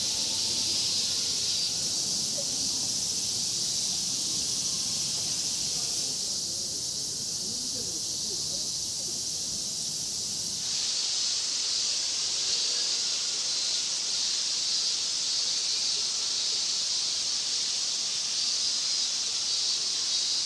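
A dense chorus of summer cicadas buzzing, a steady, loud high-pitched drone.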